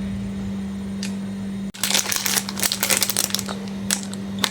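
Packaging crinkling and rustling as it is handled, starting about two seconds in, over a steady low hum.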